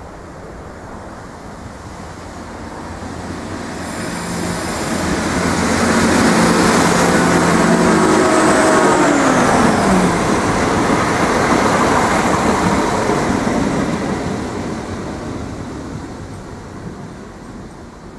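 Irish Rail 22000 class diesel multiple unit passing: its engine and transmission hum grows louder as it approaches and drops in pitch as the front of the train goes by. Then wheel-on-rail noise fades as the train moves away.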